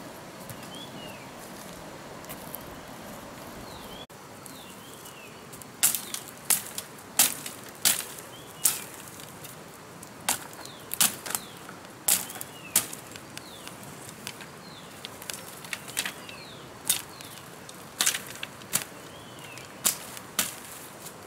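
Dry twigs and dead branches snapping and crackling in sharp, irregular cracks, starting about six seconds in and coming one or two a second. A bird's short falling chirps repeat in the background.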